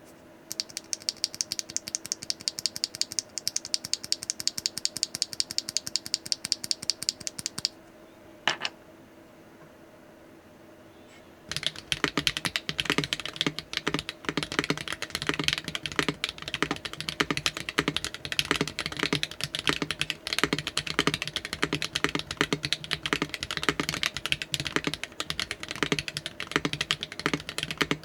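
Mechanical keyboard typed on, fitted with HMX Snow Crash rail bottom-out linear switches in an aluminium plate with no foam. First an even run of keystrokes for about seven seconds, then a single stroke and a pause, then fast continuous typing from about twelve seconds in.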